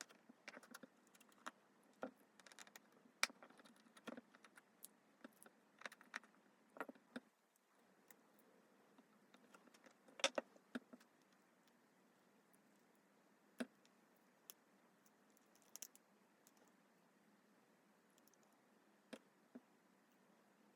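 Near silence broken by faint, scattered small clicks and taps, with a short cluster about halfway through: small repair tools touching the parts of an opened smartphone.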